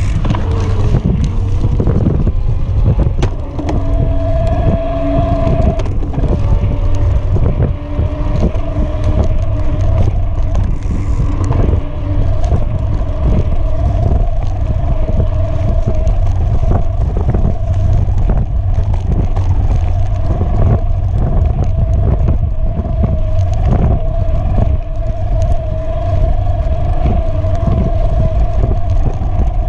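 Electric mountain bike riding a bumpy dirt singletrack: a steady motor whine, clear from about four seconds in, over a loud low rumble of wind and knobby tyres on dirt, with frequent knocks and rattles from the rough ground.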